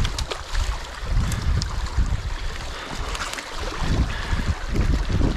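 Water rushing steadily through a freshly torn breach in a beaver dam as the flooded pond drains out. Irregular low rumbles from wind buffeting the microphone.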